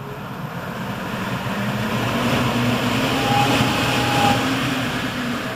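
Rosenberg GKHM 280 single-phase EC fan speeding up as its potentiometer is turned up. The rush of air and motor hum grow louder to a peak about four seconds in, with a brief whine near the peak, then ease slightly near the end.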